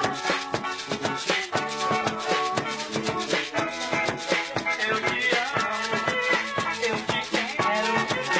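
Lively dance music with a steady beat, drums and a shaker-like rattle.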